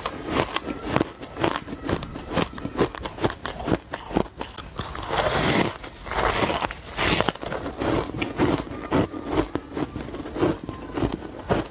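Frozen crushed-ice block bitten and chewed: a close run of sharp, crackling crunches, thickest around the middle.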